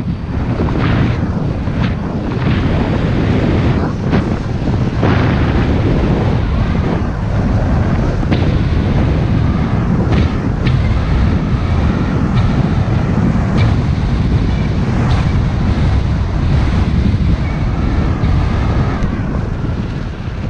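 Wind buffeting the microphone of a camera mounted outside a moving car, over a steady low rumble of tyres on the road at about 30 to 45 km/h, with a few short knocks from bumps in the surface.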